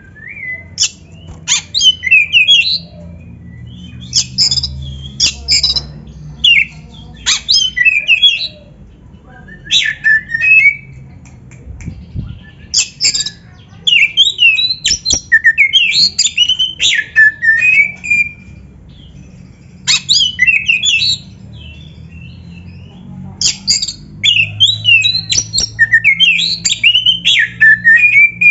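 Oriental magpie-robin (kacer) singing: loud phrases of quick, varied whistled and harsh notes sweeping up and down, each phrase lasting one to five seconds with short pauses between, over a faint low hum.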